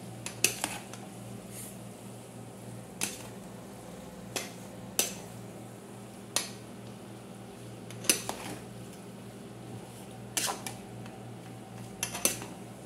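A metal spoon clinking against a large aluminium pot while tossing noodles, a sharp clink every second or two at irregular intervals, over a steady low hum.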